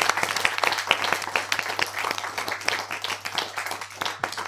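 Crackling sound effect for an animated channel outro: dense, irregular clicks and pops over a steady low hum, slowly fading out.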